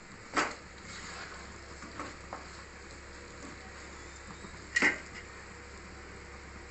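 Chicken pieces frying in a pot with a steady low sizzle, and a wooden spatula knocking against the pot, loudest twice: about half a second in and just before the five-second mark.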